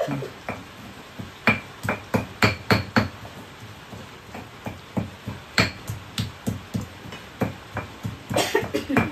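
Pestle knocking and grinding in a stone mortar (Indonesian ulekan and cobek) as spices are pounded into a paste: irregular sharp knocks, coming in quick clusters.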